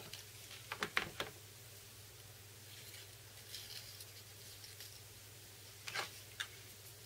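Handling of a steam iron on a wooden board: a quick cluster of sharp clicks and knocks about a second in, faint rubbing of fingers pressing down the veneer, then two more clicks near six seconds as the iron is picked up again. A low steady hum lies underneath.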